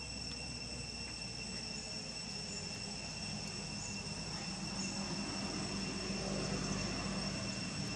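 A steady high-pitched insect drone under a low engine rumble that grows a little louder about halfway through.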